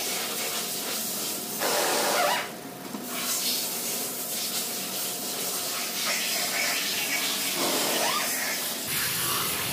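Fluid pouring in a steady stream from the open oil-pan drain hole of a Ford Taurus engine into a drain pan. The fluid is water mixed into the oil, the sign of the leaking water pump.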